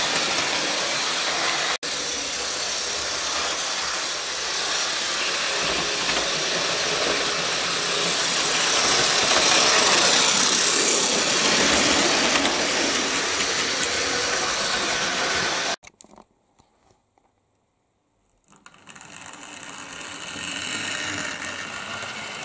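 Model railway trains running on the track close by, a steady whirr and rattle of motors and wheels on rail, first a freight train of hopper wagons. The sound cuts out to near silence for about two and a half seconds, then returns quieter as a train of coaches runs past.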